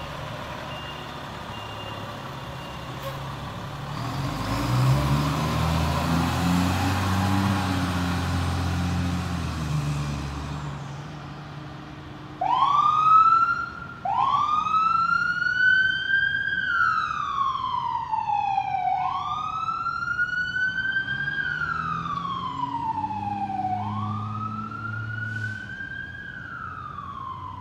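Fire engine's diesel engine running up as it pulls out. Then, about halfway through, its siren starts with two quick rising whoops and settles into a slow rising-and-falling wail.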